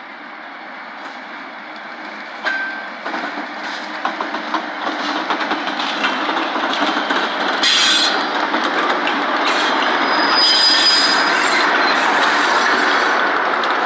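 Train running toward the listener and growing steadily louder, steel wheels clattering over the rails, with a couple of brief high wheel squeals.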